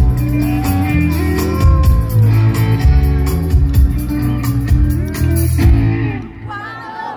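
Live rock band playing through a stage PA with electric guitar, bass and drums, with singing over it. The music thins out and drops in level about six seconds in.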